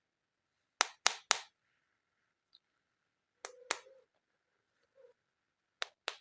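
Sharp clacks of hard plastic toys being handled, in quick groups: three about a second in, two a little past the middle, and two near the end.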